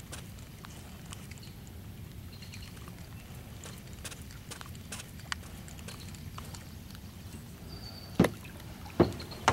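Two sharp knocks a little under a second apart near the end, as gear is handled in a small fishing boat, over a steady low outdoor background with scattered faint clicks.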